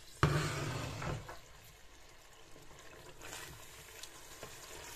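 Meat frying in oil in a steel pot, stirred with a wooden spoon: a loud stir-and-sizzle starts suddenly just after the beginning and fades over about a second, leaving a soft steady sizzle with a few light knocks. This is the bhuna stage, the meat frying until the oil separates.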